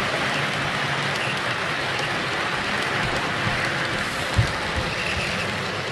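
HO-scale model freight train of hopper wagons rolling past on the track: a steady rattle of metal wheels on the rails, with a single knock about four seconds in.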